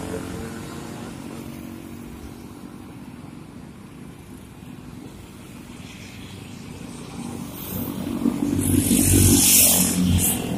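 Road traffic: motorcycle and car engines passing close by, easing off midway and then building up louder near the end, where a loud hiss lasts for over a second.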